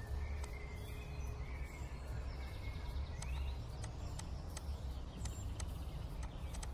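Steady background ambience with a low rumble, a few bird chirps and scattered sharp clicks.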